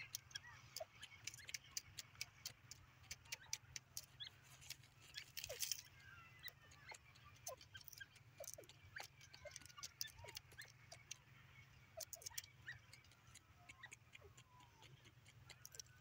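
Faint, irregular ticks and scratches of dry soil as a grey francolin dust-bathes in a scrape, with a few faint short chirps from small birds; the francolin does not call.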